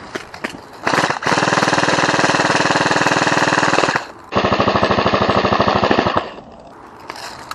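Game Face GF76 AK-style airsoft electric rifle firing on full auto: two long bursts of rapid, evenly spaced clatter from the gearbox cycling, about three seconds and then about two seconds long, with a brief pause between them.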